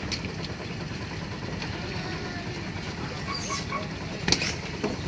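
An engine running steadily with a low hum. There is one sharp knock a little past four seconds in.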